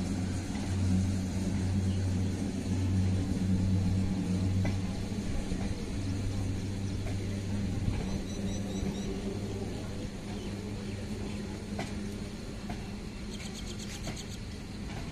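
Passenger train rolling past on a nearby track: a steady low rumble and hum from the running coaches that slowly fades, with a few faint clicks near the end.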